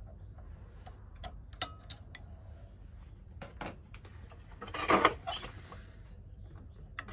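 Scattered light clicks and ticks of small metal parts being handled on a sewing machine, with a louder brief scrape about five seconds in, over a faint low hum.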